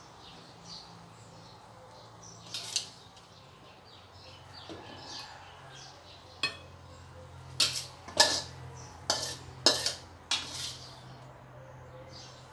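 Metal spatula scraping and clinking against a stainless-steel wok and a plate while stir-fried bamboo shoots are dished out: about eight sharp clinks, most of them in the second half, over a faint low steady hum.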